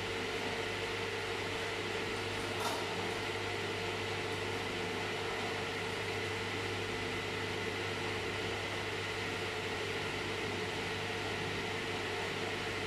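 Steady mechanical hum of running machinery, with one light knock about two and a half seconds in.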